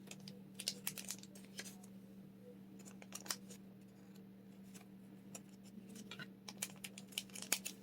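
Thin plastic card sleeves crinkling and crackling in faint, scattered bursts as trading cards are worked into them by hand, over a steady low hum.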